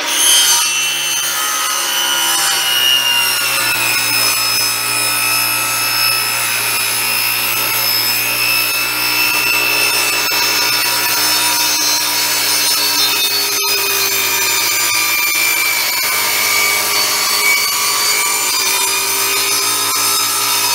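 Table saw running and cutting through a long board: a loud, steady motor-and-blade whine over the rasp of the blade in the wood, its pitch easing slowly downward as the cut goes on.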